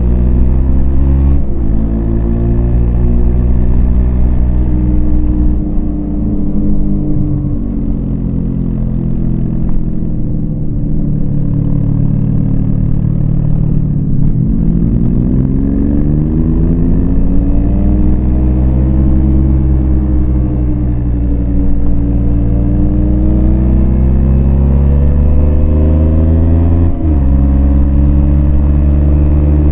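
Yamaha MT-25's parallel-twin engine under way, its pitch rising and falling with the throttle, with quick drops in pitch from gear changes shortly after the start and near the end.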